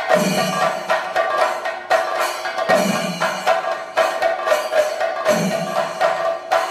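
Chenda drums in a Thayambaka ensemble, played fast with sticks and hands: a dense run of sharp strokes on the drumheads over a steady ringing tone. Deeper strokes come back about every two and a half seconds.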